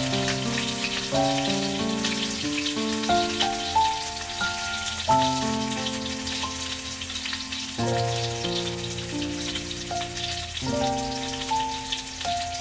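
A fish shallow-frying in oil in a steel wok, with a steady crackling sizzle. Background music of held chords plays at the same time, changing every second or so.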